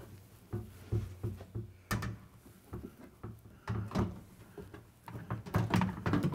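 Front panel of a front-load washer being handled and fitted onto the cabinet: a series of irregular knocks and bumps as the panel meets the frame.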